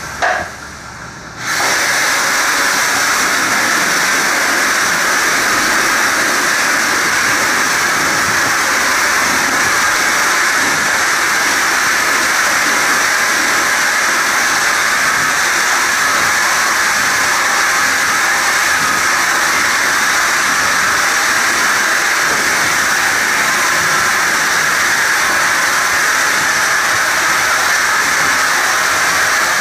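Air-driven cartridge spray gun spraying hybrid polyurea bed liner: a loud, steady hiss of compressed air atomizing the coating. It comes up to full strength about a second and a half in.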